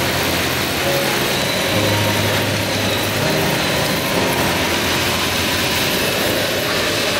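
Steady running noise of a wire-processing line, with liquid pouring from a row of nozzles onto the moving steel wires and splashing into a trough.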